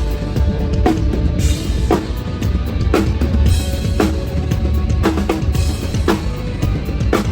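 Metal drumming on a full drum kit: a fast, unbroken run of bass-drum strokes under snare hits about once a second, with cymbals washing over them.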